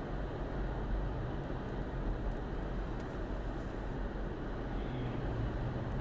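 Steady rushing noise of blizzard wind mixed with the deep rumble of vehicle traffic in a whiteout.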